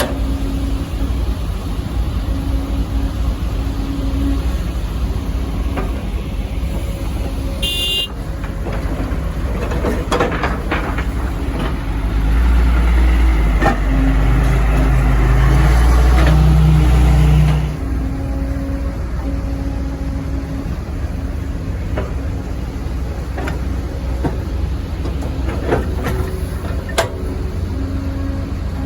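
Kobelco SK140 excavator's diesel engine running steadily, growing louder for about five seconds midway as it works under load, then dropping back suddenly. Scattered clanks run through it, and there is a short high-pitched beep about a quarter of the way in.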